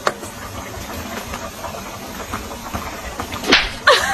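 Steady hiss of steam venting from an electric rice cooker, with a click at the start. A couple of short, loud calls sound near the end.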